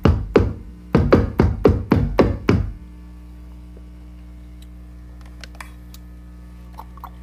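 Deep, percussive kick- and tom-like hits from a Make Noise 0-Coast synthesizer patch triggered by a drum machine, coming in a quick uneven run of about four a second. They stop about three seconds in, leaving a steady low electrical hum from the rig with a few faint clicks.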